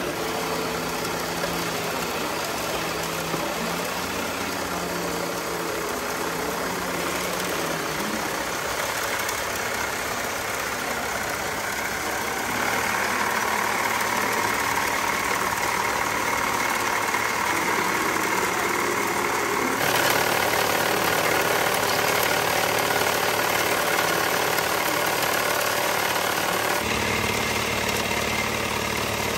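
Radio-controlled model vehicles running steadily, with a continuous engine-like drone and motor whine that shifts in pitch and loudness several times and gets louder about twelve seconds in.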